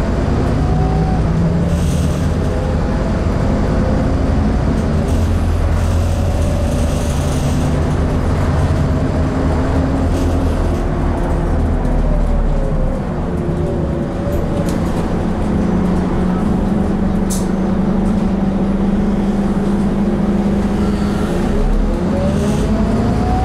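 Scania N230UD Enviro400 double-decker bus heard from inside the passenger saloon: its diesel engine and driveline run steadily under way, with a whine that rises and falls as the bus speeds up and eases off. It dips briefly about halfway through and climbs again near the end.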